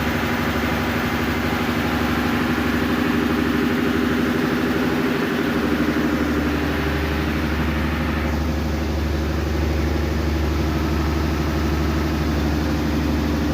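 Vintage Lister diesel generator engine running steadily after starting. A deeper, heavier hum comes in about five and a half seconds in.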